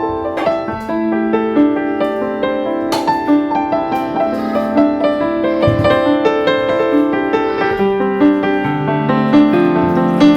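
Background music: a gentle piano melody of single notes over a steady accompaniment.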